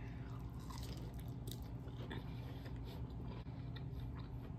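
Close-up chewing of a mouthful of fried, breaded lobster tail, with scattered faint crackles, over a low steady hum.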